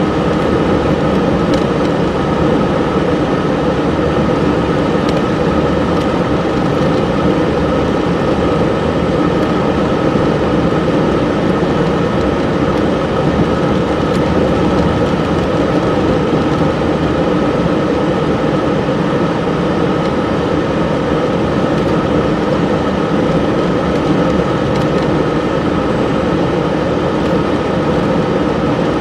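Steady noise inside a car cabin while driving on snow-covered streets: engine and tyre rumble, with a faint steady whine.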